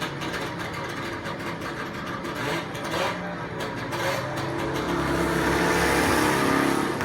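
Sports-car engines running hard on a race track during practice runs, cars passing and backing off the throttle. The engine note is steady for the first few seconds, then one car grows louder and peaks about six seconds in.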